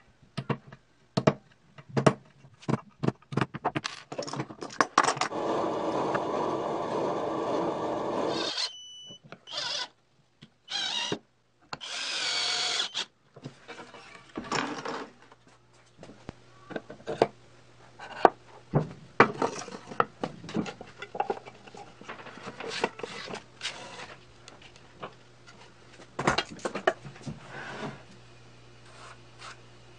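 Cordless drill driving screws into wood: one steady run of about three seconds, then three short bursts. Before and after come clicks and knocks of wooden parts and screws being handled.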